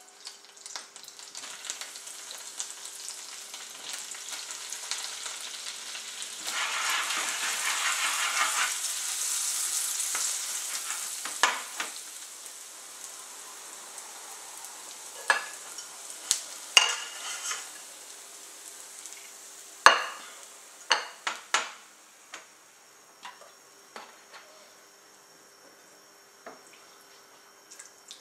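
Butter and oil sizzling in a nonstick frying pan as bread cubes fry into croutons, the sizzle loudest from about six to ten seconds in. It is followed by scattered sharp clicks and knocks in the pan and a fainter sizzle near the end.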